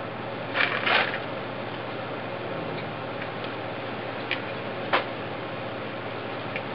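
Screwdriver prying and poking at a lithium polymer battery pack on gravel: a few scattered clicks and scrapes, the loudest cluster about a second in, over a steady hiss.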